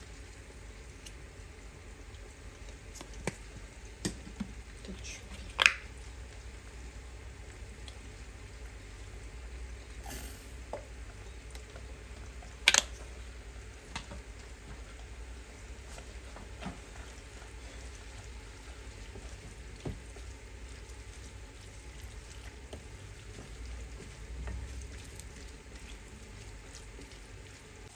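Potatoes frying in oil in a pan with a steady sizzle, and a few sharp clicks and knocks over it, the loudest about 13 seconds in.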